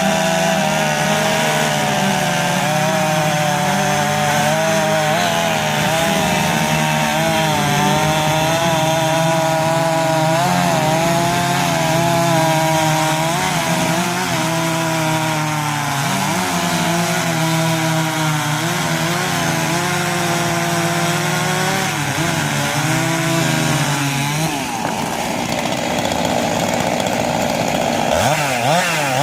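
Husqvarna 385 XP two-stroke chainsaw cutting wood, running hard with its pitch wavering up and down under load. About 25 seconds in the steady engine note breaks up briefly, then settles back.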